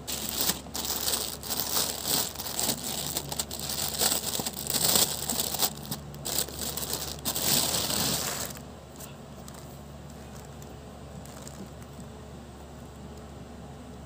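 Plastic packaging crinkling and rustling as it is handled and opened, for about eight seconds, then it stops and only faint handling is left.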